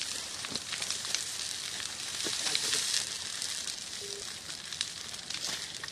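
Forest fire burning through brush and trees: dense crackling over a steady hiss, louder for a moment about two to three seconds in.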